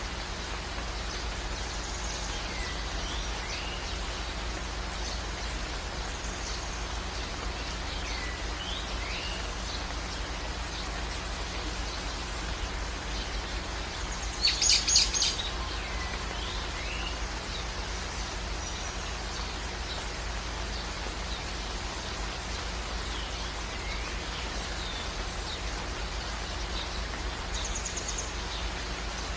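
Steady background hiss with a low hum, and faint bird chirps every few seconds. About halfway through, a short louder run of rapid high chirps.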